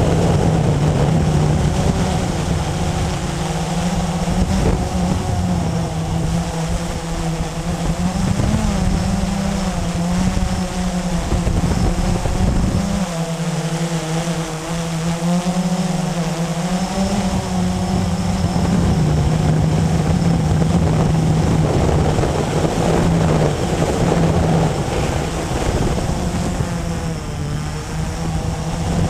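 Blade 350QX quadcopter's electric motors and propellers humming steadily, heard close up from the camera mounted on it; the pitch drifts slightly up and down as it adjusts its hover. A low rumble under the hum eases off for a few seconds about halfway through.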